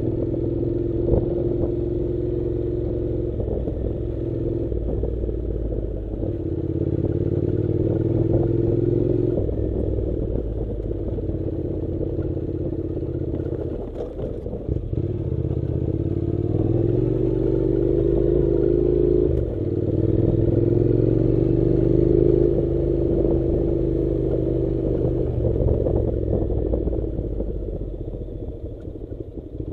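Honda NC700's 670 cc parallel-twin engine running under changing throttle, its pitch rising and falling in long pulls with short dips between them. Rattles and knocks from riding over a rough dirt track come through, and the engine is quieter near the end.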